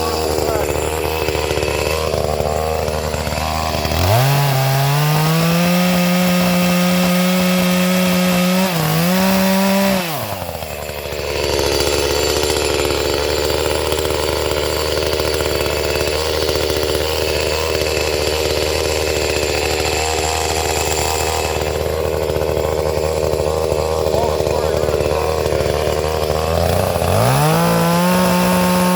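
Gas chainsaw running while clearing small trees. Its engine climbs to a high, steady rev about four seconds in, falls back to a lower pitch around ten seconds, and revs high again near the end.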